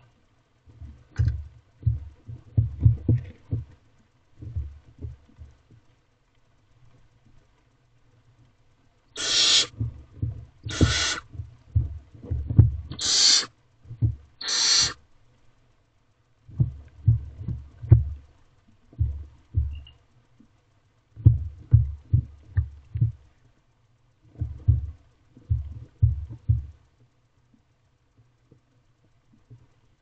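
Barn owlets give four harsh, hissing screeches, each about half a second long, close together in the middle. Around them come dull knocks and scuffles as the owlets shuffle on the nest box floor and tug at a rabbit carcass.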